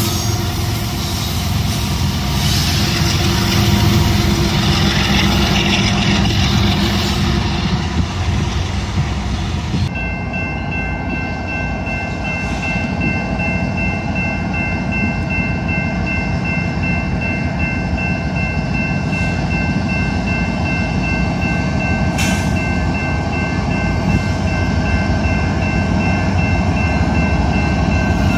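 A CN freight train rolls past close by, with locomotive and freight cars rumbling. About ten seconds in, this gives way to approaching BNSF diesel freight locomotives sounding their horn, a steady three-note chord held to the end over the engine and wheel rumble.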